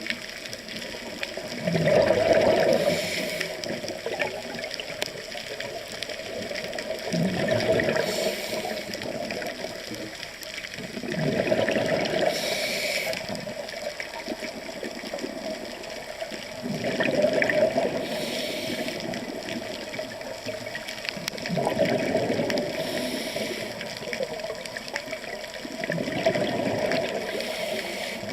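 Scuba diver breathing underwater through a regulator: a gurgling rush of exhaled bubbles about every five seconds, each followed by a short hiss.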